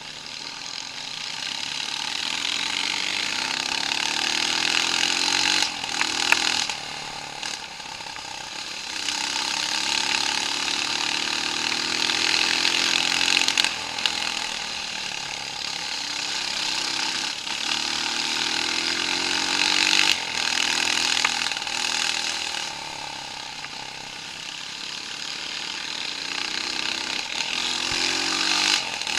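Off-road vehicle engine revving up and falling back again and again, its pitch climbing with each pull, over loud rushing noise. A few short knocks stand out, around six seconds in and again near fourteen seconds.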